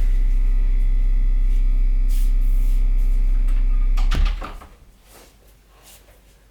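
A loud, steady low rumbling drone with a faint high tone above it cuts off suddenly about four seconds in with a click or knock. Faint rustles and ticks follow in a quiet room.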